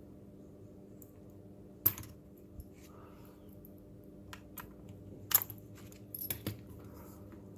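A few sharp clicks and light clatter of small plastic and metal robot-kit parts being handled, the loudest about two seconds in and again around five and a half seconds, over a faint steady hum.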